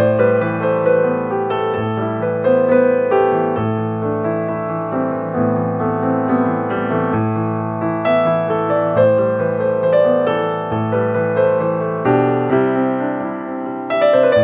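Background piano music: a melody of single notes over held low notes, at a steady level.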